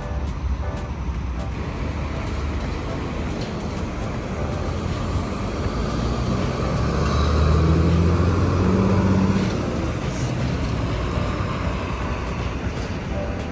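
City street traffic running steadily at a busy pedestrian crossing. For a few seconds near the middle a bus's engine grows loud and close, with a low droning rumble, then fades as it moves off.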